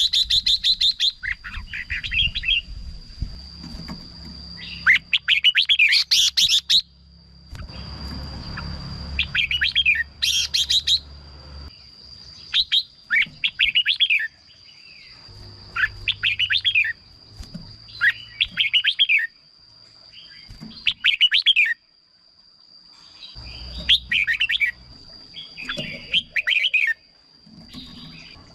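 Red-whiskered bulbul singing: short, quick warbling phrases repeated every second or two, with a steady high-pitched tone underneath for much of the time.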